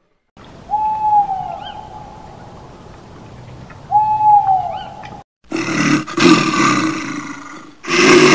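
Two owl hoots, each one drawn-out note that dips at its end, about three seconds apart. Then, about five and a half seconds in, a bear gives two long, rough roars.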